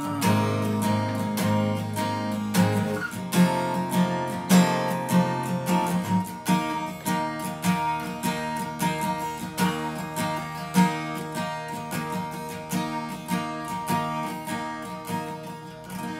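Epiphone AJ-210 CE steel-string acoustic guitar played solo, with picked notes and strummed chords and no voice. The playing grows gradually quieter.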